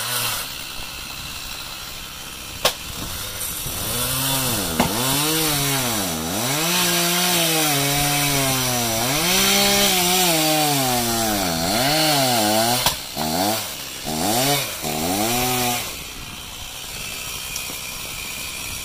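Chainsaw cutting a log, its engine pitch rising and sagging over and over as the chain bites and frees, then stopping near the end. A couple of sharp knocks come before it, from an axe splitting firewood.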